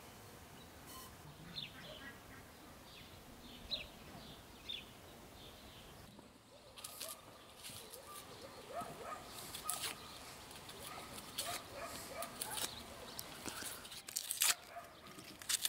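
Dry onion skins crackling and tearing as onions are peeled with a kitchen knife, in a rapid run of sharp clicks and rustles from about six seconds in. Before that, a few faint bird chirps.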